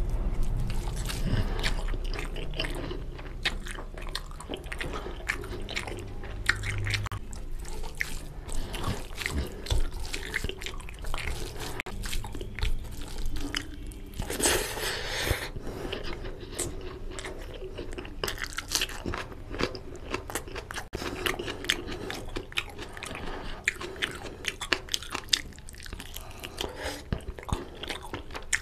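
Close-miked eating by hand: wet chewing, lip smacks and mouth clicks as rice and oily curry are eaten, with squelching as fingers mix rice into the gravy. About halfway through there is a louder, noisier stretch as a large handful of rice goes into the mouth.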